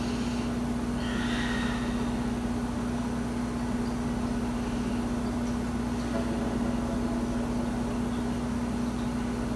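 Steady low electrical or mechanical hum with a constant hiss of room noise, one unchanging pitch throughout.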